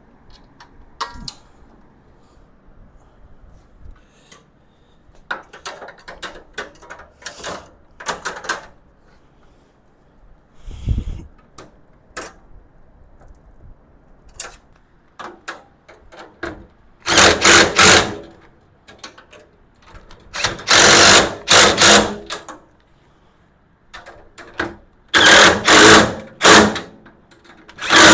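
Small parts and bolts rattling and clicking as they are handled, then a power driver running bolts in four short bursts of about a second each in the second half, fastening the tool cart's panels together.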